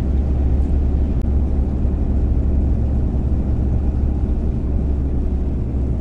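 Steady low drone of a 2019 Ram 2500's Cummins 6.7-litre inline-six turbo-diesel and its road noise, heard from inside the cab while it tows a loaded gooseneck trailer.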